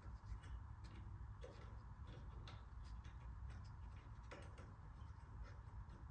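Faint, irregular small metallic clicks as a ring-lock retaining clip is worked off the pin at a garage door opener's rail bracket, over a low steady hum.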